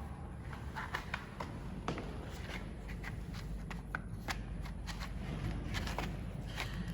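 Irregular small clicks, taps and rustles, as of people handling objects and shifting about, over a low steady room hum.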